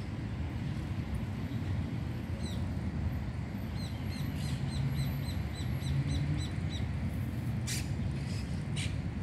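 Monk parakeets calling: a quick run of short high chirps, about four a second, in the middle, then two short harsh squawks near the end, over a steady low rumble of city traffic.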